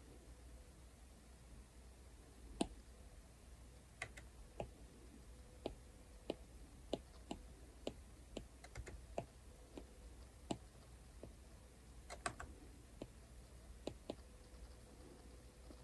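Apple Pencil tip tapping against an iPad's glass screen: quiet, sharp clicks at irregular spacing, a cluster of quick ones a little after the middle.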